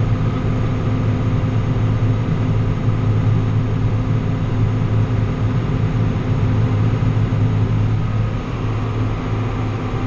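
John Deere 7800 tractor's diesel engine running steadily under load, heard from inside its cab, as it drives the grain cart's auger unloading corn. The drone eases off slightly near the end.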